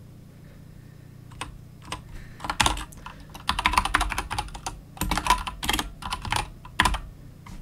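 Typing on a computer keyboard: a few separate keystrokes, then quick runs of keys from about two and a half seconds in.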